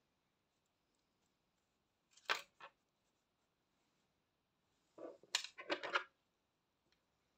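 A light double knock about two seconds in as a metal crochet hook is set down on a table, then a short run of clicks and rustles around five to six seconds in from tools and the crocheted work being handled.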